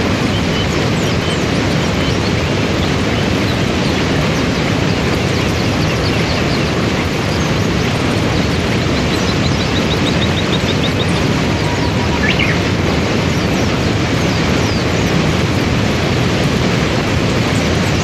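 Waterfall pouring and river rapids rushing over rocks, a loud, steady noise. Faint bird chirps sound above it, including a quick trill about nine seconds in.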